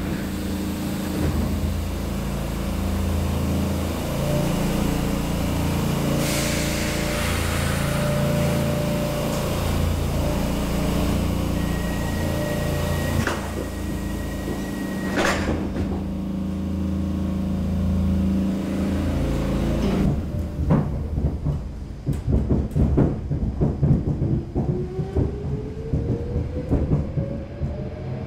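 Stockholm Metro C6 train standing at a station with its equipment humming steadily; after a hiss, a steady beep sounds for about three seconds and the doors shut with a knock. Then the train pulls away, wheels clattering and the motor whine rising steadily in pitch as it accelerates.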